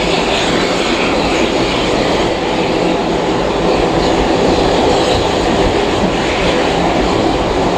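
Steam-hauled heritage passenger train running along the line: a steady, loud rumble and rail noise of the carriages on the track.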